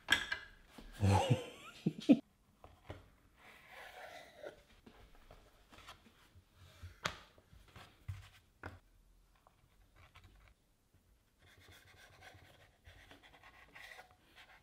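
Quiet handling sounds of fresh pasta dough on a wooden chopping board: a louder stretch of handling in the first two seconds, then hands rubbing and dusting flour over the sheet, a few sharp knocks of a knife on the board, and faint scraping as it cuts the dough into strips near the end.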